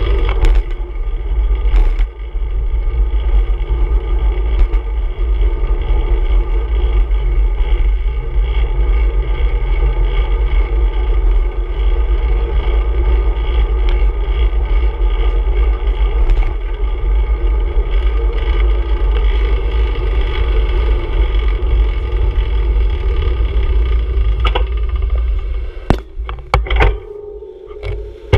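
Steady wind rumble on a handlebar-mounted camera's microphone, mixed with road and tyre noise from a bicycle riding along a street. Near the end the rumble falls away as the bike slows, with a few sharp clicks and knocks.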